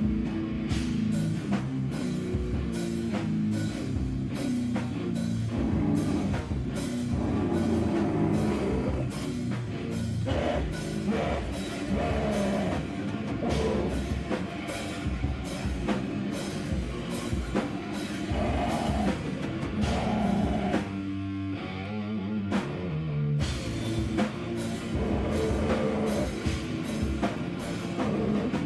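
Live band playing loud, heavy rock, a drum kit hitting a steady beat over dense guitar and bass; the low end drops out briefly about two-thirds of the way through.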